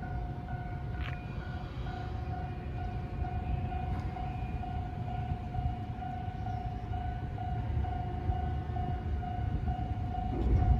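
Level-crossing warning bell at a movable road bridge, ringing a steady repeated tone about twice a second to signal that the road is closed for the bridge opening. A low rumble runs beneath it and grows louder near the end.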